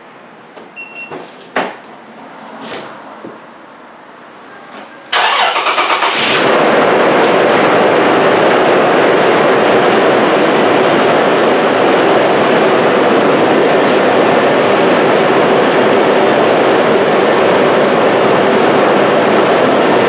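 A few light knocks, then about five seconds in the 2004 Toyota 4Runner's engine cranks briefly and starts, settling into a steady, loud idle.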